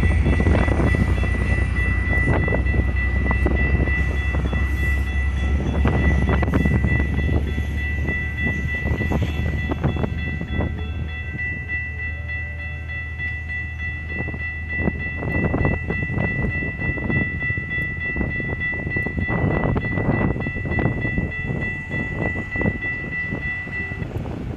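Metrolink bilevel passenger cars roll over the grade crossing with a low rumble and wheel clatter that fades as the train pulls away. The crossing's warning bell rings steadily through it and stops near the end as the gates go up.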